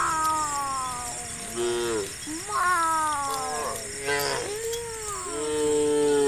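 Several cattle mooing in overlapping calls that mostly fall in pitch, one long call near the end.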